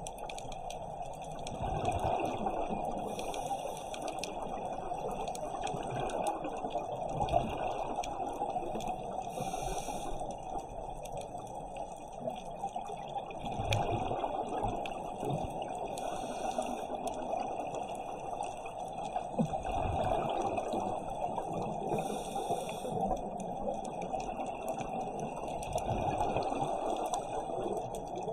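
Underwater ambience of a scuba dive: a steady watery hiss, with bursts of divers' exhaled regulator bubbles about every six or seven seconds.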